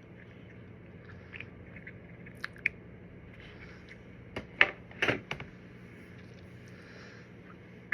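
A few light clicks and taps of small objects being handled, with a louder cluster of sharp clicks and knocks just past the middle.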